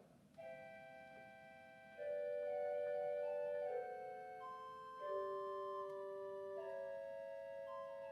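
1979 Austin pipe organ played on its swell division: a slow passage of sustained notes and chords moving from one to the next, soft at first and louder from about two seconds in.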